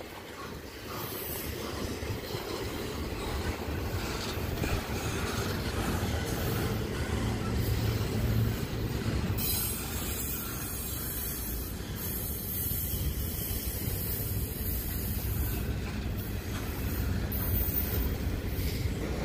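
Double-stack intermodal well cars of a freight train rolling slowly past, making a steady low rumble of steel wheels on the rails.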